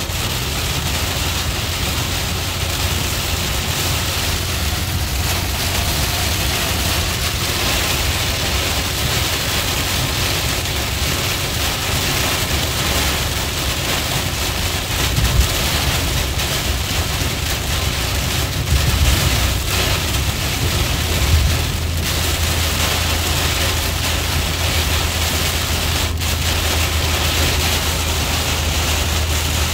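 Heavy rain beating on a car's windshield and roof, heard from inside the moving car over the steady low rumble of the car driving on a wet freeway. A few short, louder surges of rain come about halfway through.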